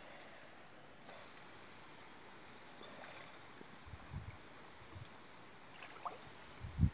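Water sloshing and splashing as swimmers move and dive in a shallow creek, with short low splashes about four seconds in and again near the end. A steady high-pitched insect buzz runs underneath.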